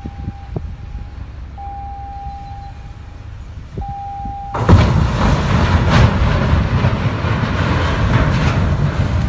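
Two steel-hulled cargo ships colliding: about halfway through, a sudden loud crunching and grinding of hull against hull that goes on with scattered sharp cracks. Before it, a steady high tone sounds three times over a low rumble.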